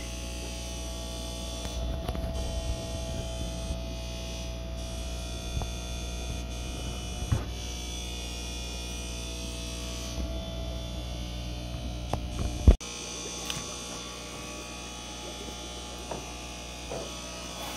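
Steady hum of fish-room aquarium pumps, with a few light knocks. A sharp knock about two-thirds of the way through is the loudest moment, and after it the hum is a little quieter.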